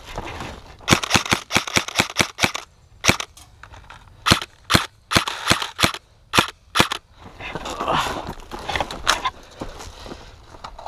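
Airsoft rifle firing snappy semi-automatic shots: a quick string of about eight, one more after a short pause, then another string of about seven spaced roughly half a second apart. Gear rustling and footsteps follow near the end.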